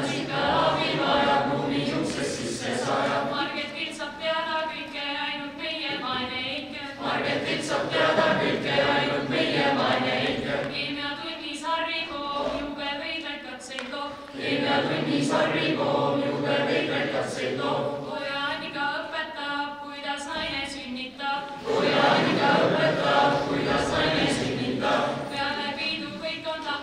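A group of young voices singing together unaccompanied, in unison like a school choir, from song sheets. The song goes in phrases, each new one starting louder, about every seven seconds.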